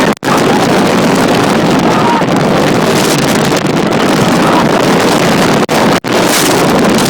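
Loud, steady rush of high-speed wind from a hurricane-simulator blower, buffeting the microphone. The sound drops out for an instant just after it begins and twice more about six seconds in.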